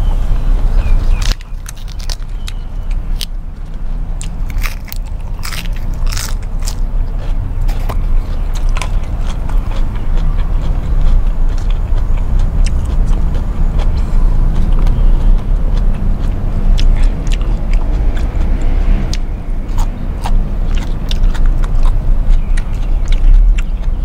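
Close-miked chewing of beef noodles and fresh raw greens, with many sharp, crisp crunching clicks running through it.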